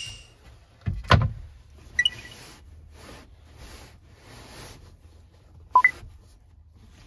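A loud thud about a second in, a short electronic beep at about two seconds and a quick rising two-note beep near six seconds, with soft rustling of the strapped sleeping-bag case in the ceiling rack as it is pushed and handled in between.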